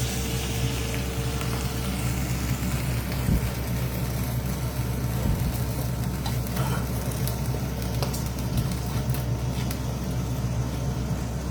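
Egg-in-bread toad in the hole frying in an oiled pan: a steady sizzle over a continuous low hum.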